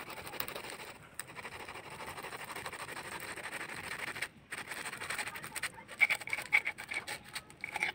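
Knife sawing through crisp deep-fried paneer spring rolls, a steady scratching of blade on crust, the blade scraping the metal plate beneath. There is a short break about four seconds in, then a few sharper ticks and scrapes near the end.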